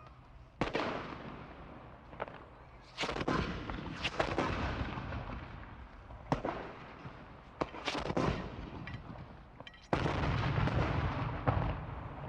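Gunshots on a firing range: about ten shots from several guns at irregular intervals, some close together and some fainter and farther off, each with an echoing tail. Near the end comes a louder, denser stretch of firing.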